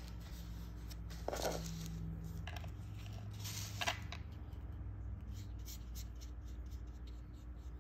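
Brush and paint handling: a couple of short scrapes and clicks as the brush is worked, then faint ticking and brushing as a round brush lays watercolor paint onto watercolor paper.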